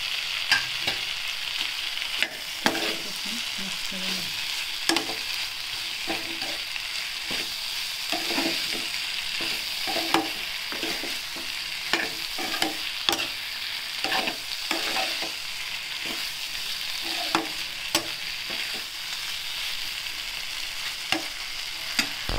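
Eggplant and tomato-onion masala sizzling steadily in a metal frying pan while a steel spoon stirs it, clinking and scraping against the pan many times at irregular moments.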